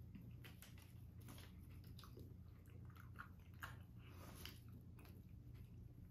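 Faint, irregular chewing and mouth sounds of people eating a thick dark chocolate bar filled with raspberry jam, over a low steady hum.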